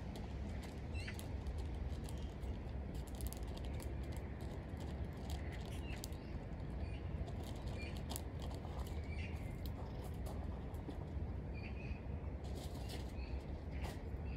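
Outdoor background: a steady low rumble with many scattered clicks and a few short, high chirps, about one every few seconds.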